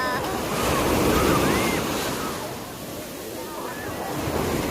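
Ocean surf: waves breaking and washing up the shore, swelling loudest about a second in and building again near the end.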